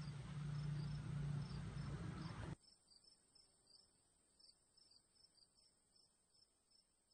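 A cricket chirping faintly and steadily, about two short high chirps a second. Over the first couple of seconds there is a low room hum, which cuts off suddenly, leaving only the chirps.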